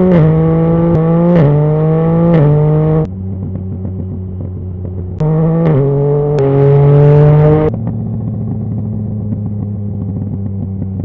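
2019 Yamaha MT-09's inline-three engine through a Scorpion Serket full exhaust, accelerating hard with several quickshifter upshifts, each a sudden drop in pitch with a sharp crack. About three seconds in the throttle shuts and the exhaust crackles and pops on the overrun; a second hard pull with a couple more quick upshifts follows from about five seconds, then the overrun crackles again.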